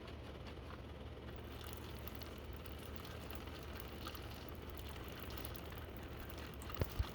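Steady low mechanical hum with light, scattered rattling, then two sharp knocks in quick succession near the end.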